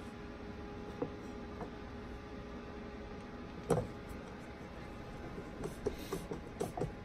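Screw being driven by hand with a multi-bit screwdriver into a screen door crossbar fitting. There is a single click and then a sharper knock, and near the end a run of small irregular clicks as the screwdriver turns.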